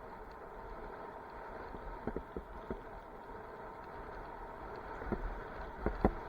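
Bicycle rolling along a trail with steady tyre and wind rumble, broken by short knocks and rattles from bumps: a few about two seconds in, more near the end, the loudest just before it stops.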